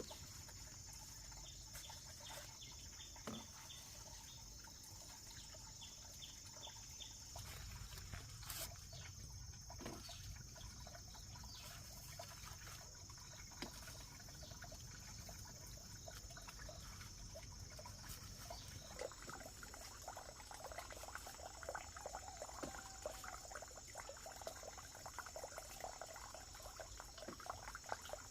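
Steady high-pitched insect drone, with a few scattered knocks. About two-thirds of the way in, a soft crackly trickling or rustling noise joins it.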